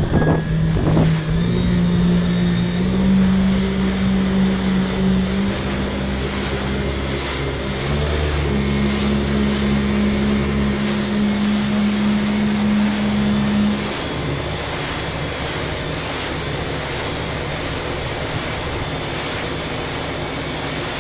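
Jet ski engine running at speed, a steady drone that climbs in pitch about two seconds in and again around eight seconds, then eases back near fourteen seconds, over wind and spray noise.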